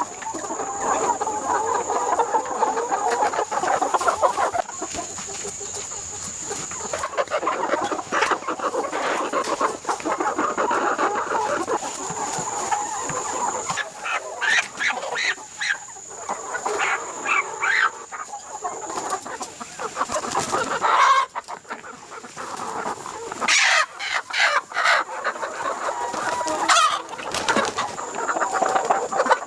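A flock of chickens clucking continuously, with several louder, longer calls in the second half. A steady high-pitched whine runs underneath.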